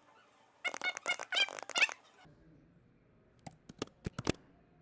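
Computer keyboard keys clicking in a quick run of about half a dozen keystrokes near the end. Earlier, about a second in, a high, wavering voice-like sound lasts a little over a second.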